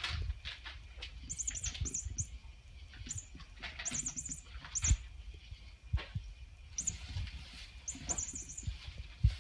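Wire-mesh cat ball toy jingling in short repeated bursts as cats bat it around, with a few sharp knocks of the ball against the tile floor.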